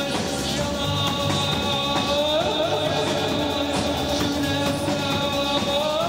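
Live band playing rock music on electric bass, drum kit and electronics, with steady held tones over a driving beat.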